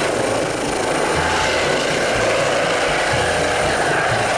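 Eurocopter EC135 air ambulance helicopter hovering low, with steady rotor and turbine noise.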